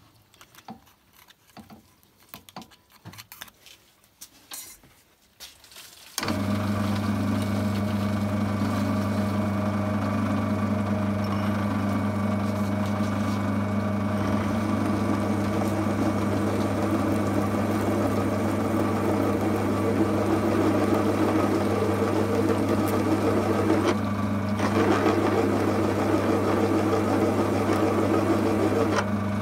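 A few light handling clicks, then about six seconds in a drill press starts and runs with a steady hum while a resharpened countersink cuts a countersunk hole in a steel bar. The cutting noise over the hum drops out briefly twice. The countersink, reground with a smaller relief angle, cuts the hole smooth, without chatter.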